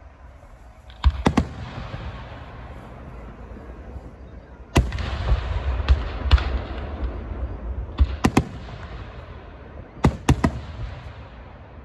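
Fireworks going off: four clusters of two or three sharp bangs, about a second in, near five seconds, near eight and near ten seconds, each followed by a fading hiss.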